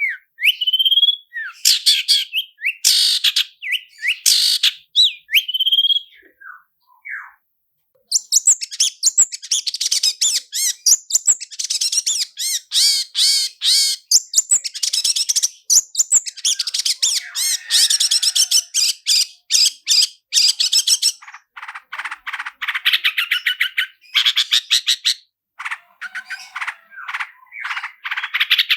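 Long-tailed shrike (cendet) singing: a few sharp separate notes, a short pause about seven seconds in, then a long, very fast rolling trill that breaks up into spaced bursts of notes near the end.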